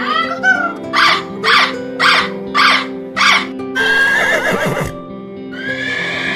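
Animal calls over steady background music: a short call, then five short calls in an even rhythm about twice a second, then two longer, harsher calls.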